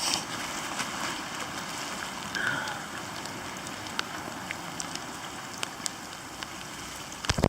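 Steady rain falling, an even hiss with scattered sharp drip ticks. A few loud low thumps come right at the end.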